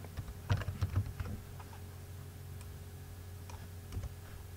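Clicks of a computer keyboard and mouse: a quick run of key clicks in the first second and a half, then a few single clicks spaced apart, over a steady low hum.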